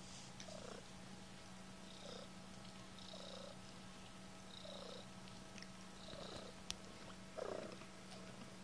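Mother cat purring softly as her newborn kittens nurse, the purr swelling in a slow, even rhythm about once a second. A sharp click and a brief louder sound come near the end.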